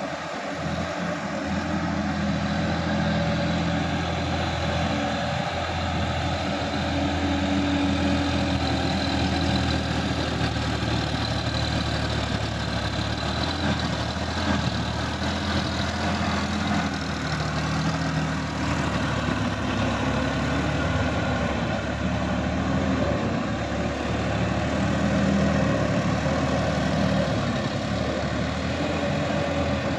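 Sonalika DI-50 RX tractor's diesel engine running steadily under load as it pulls a rotary tiller through a flooded paddy field.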